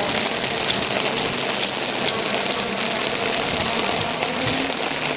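Heavy rain falling steadily, an even hiss with scattered drop ticks, over a faint low hum.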